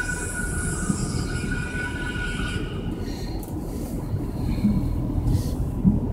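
Road and tyre noise heard inside a moving car: a steady low rumble, with a thin whine and high hiss that fade out about three seconds in.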